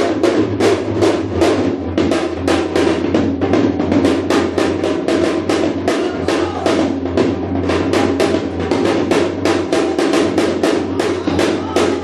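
Korean janggu (hourglass drum) played with sticks in a fast, driving shamanic rhythm, about five sharp strokes a second.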